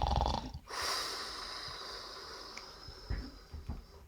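A person imitating a bear's snore: a rough, rattling snort on the in-breath, then a long hissing out-breath with a thin whistle that lasts about three seconds and slowly fades.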